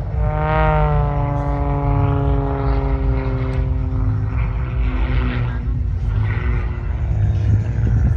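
Propeller aerobatic plane's engine droning as it flies past, its pitch falling slowly over about five seconds as it goes by, over a steady low rumble.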